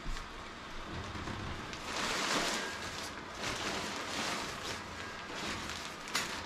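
Blower fan of a Gemmy airblown Christmas inflatable running as the nylon figure fills with air, the fabric rustling and crinkling as it unfolds and is handled.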